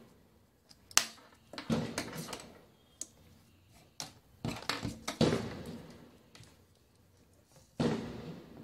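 Handling noise of a digital multimeter in its clear hard-plastic blister pack and its test leads: sharp plastic clicks and knocks in short clusters, about a second in, around two seconds, around five seconds and again near the end.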